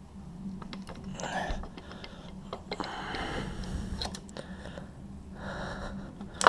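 Disassembled dirt-bike engine parts being handled and wiped down: a few bursts of rubbing and scraping with small clicks and knocks, and a sharper click near the end.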